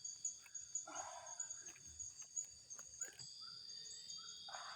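Insects chorusing: a steady high-pitched trilling with a pulsing upper band. Over it come scattered small clicks and knocks and two short scraping bursts, about a second in and near the end.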